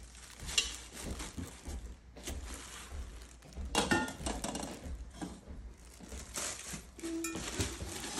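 Plastic-wrapped hard-anodized pots handled in a cardboard box: wrapping crinkles and rustles, and metal cookware clinks together a few times, loudest about four seconds in.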